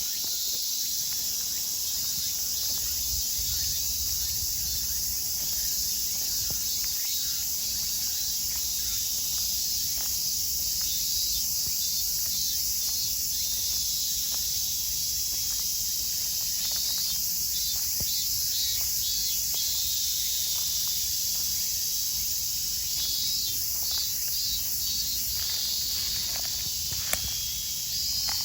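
Robust cicadas (minmin-zemi) singing: a steady high-pitched drone, with pulsed, repeating calls standing out about halfway through and again near the end.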